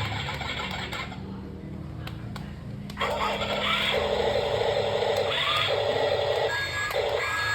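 Small electric motors of a radio-controlled excavator running in short repeated bursts, each start with a brief rising whine. A lower steady hum comes first, then from about three seconds in the buzzing runs start and stop several times.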